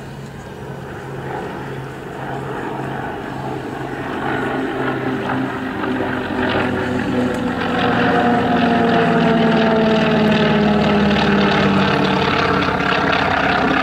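Two propeller aircraft flying past in close formation: the North American Rockwell OV-10B Bronco's twin turboprops together with a single-engine piston warbird. The engine and propeller drone grows steadily louder over the first eight seconds. From about seven seconds in, its tones slide down in pitch as the pair passes overhead.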